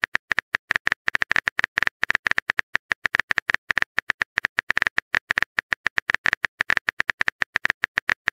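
Typing sound effect of a chat app: a fast, uneven run of short sharp clicks, about eight a second, as the next message is typed out.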